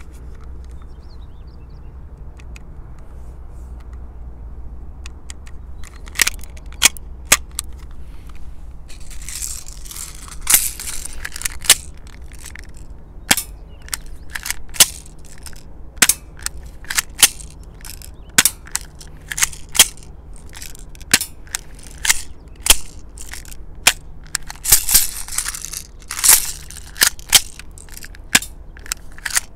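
Silver Beretta M92FS airsoft BB pistol firing single shots: sharp cracks coming one or two a second, starting about six seconds in.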